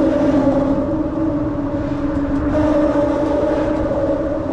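Steady droning hum from traffic crossing the bridge overhead, holding one pitch with an octave above it over a low rumble.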